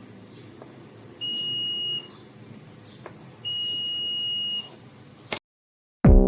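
Buzzer of a homemade IR-sensor door security alarm sounding two steady high-pitched beeps, the first under a second long and the second a little longer. Near the end, loud music with a beat starts.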